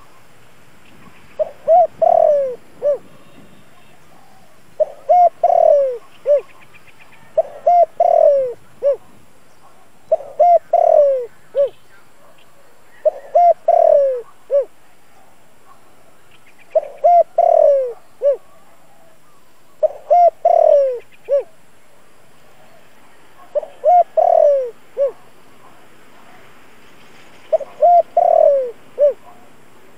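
Spotted dove cooing: a phrase of several low coos, repeated about every three seconds, nine times.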